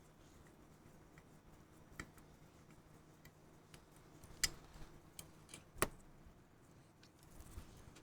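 Scattered small sharp clicks and taps of a watchmaker's tools on metal, a handful of them at uneven intervals, the loudest about six seconds in, as the screws holding the pocket watch movement in its case are undone.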